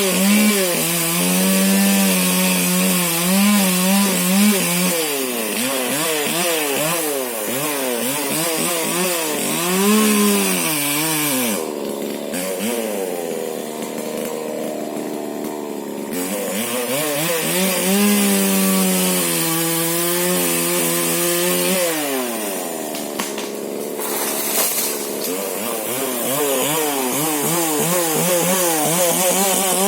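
Husqvarna 125 two-stroke chainsaw with a modified exhaust running at high revs while cutting a rubber tree, its pitch wavering up and down as the chain loads in the wood. Twice the revs sag for a few seconds before climbing back.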